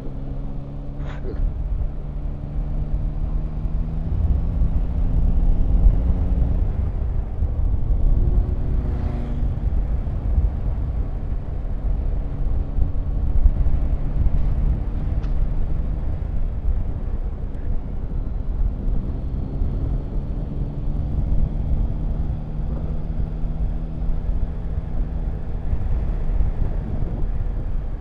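Yamaha Tracer 9 GT's three-cylinder engine running as the motorcycle climbs through bends, its note rising and falling with the throttle, under a steady low rush of wind on the microphone.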